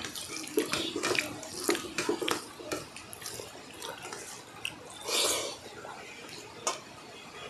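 Wet, close-up eating sounds: fingers mixing and squelching rice with fish curry on steel plates, with chewing and lip smacks as many short scattered clicks. A short louder burst about five seconds in.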